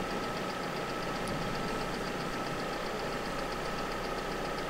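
Vehicle engine idling: a steady hum with a fast, even ticking over it.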